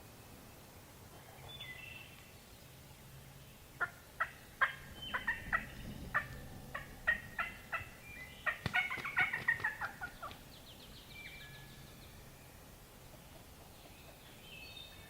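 Wild turkey calling: a series of sharp, separate notes starting about four seconds in, quickening into a dense run around nine seconds, then stopping. Faint songbird chirps come before and after.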